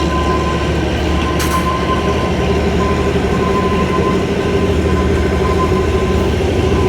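Kalka–Shimla narrow-gauge toy train running: a steady rumble of the moving carriage with a steady high whine over it, and a single sharp click about a second and a half in.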